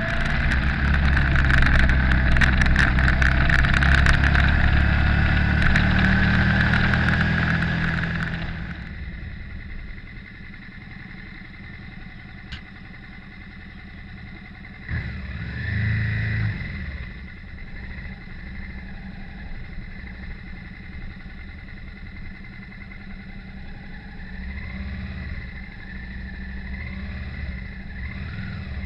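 Motorcycle engine running hard with wind buffeting the microphone, then dropping after about eight seconds to a quiet, slow-revving run, with a short rise in throttle about halfway through.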